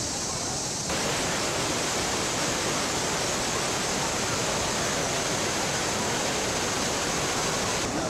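Manavgat Waterfall, a wide, low cascade pouring over a rock ledge into the river, rushing with a steady, dense hiss of falling water. The hiss turns louder about a second in, and faint crowd voices under it fall away.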